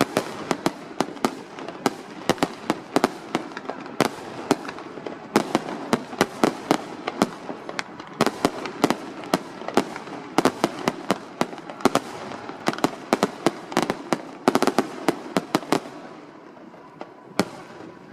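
Aerial fireworks show: a rapid barrage of shell bursts and crackling bangs, several a second, that thins out near the end to one last lone bang.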